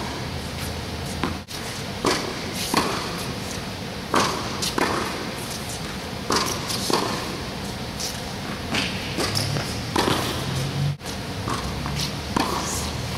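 Tennis rally on an indoor hard court: sharp pops of the ball struck by strings and bouncing on the court, every second or so, echoing in a large hall over a steady hiss.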